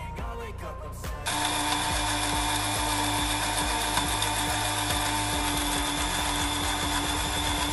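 Geilex countertop blender motor running at a steady speed with a constant whine, blending cake batter; it starts sharply about a second in.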